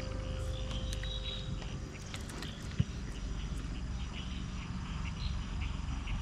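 Insects chirping at dusk, short high chirps repeating at about three a second over a low rumble. One sharp knock sounds nearly three seconds in.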